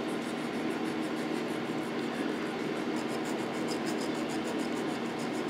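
An electric fan running with a steady hum, under quick, light rasping strokes of a needle file on a lead figure's soldered hand, about five strokes a second.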